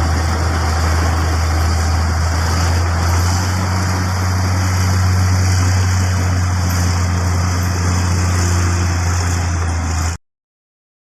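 Heavy diesel machinery engine running steadily with a strong low hum, cutting off abruptly about ten seconds in.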